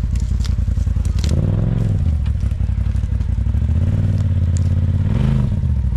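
Side-by-side UTV engine revving up and down as it climbs a rocky obstacle, with swells in revs about a second and a half in and again near the end, and a scatter of clattering and scraping from under the tyres.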